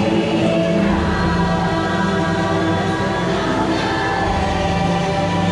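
Choir-like singing with long held notes over a low steady drone: the boat ride's soundtrack music.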